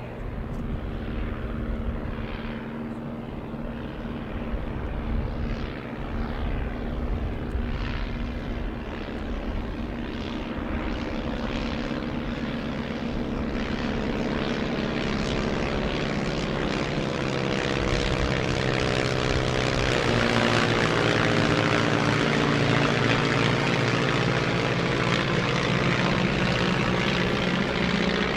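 De Havilland Tiger Moth biplanes flying over, their four-cylinder Gipsy Major engines and propellers running together as several overlapping engine tones. The sound grows steadily louder as the formation approaches and is loudest in the second half.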